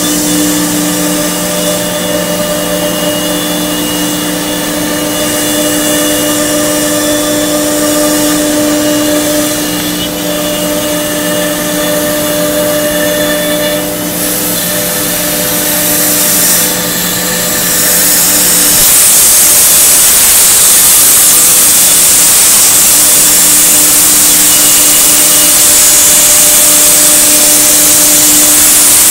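Multicam MG205 CNC router running with a steady mechanical whine made of several steady tones. About two-thirds of the way through, a loud hiss joins in and the sound gets louder and stays that way.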